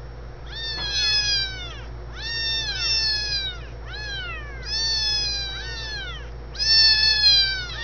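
Young kittens mewing over and over: high calls that each rise briefly and then fall in pitch, about one a second, some overlapping.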